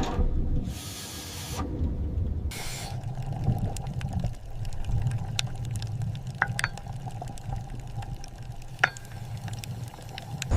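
Underwater salvage sound-design ambience: two short hissing bursts of air or spray in the first three seconds, then a low steady rumble with scattered small metallic clicks and ticks.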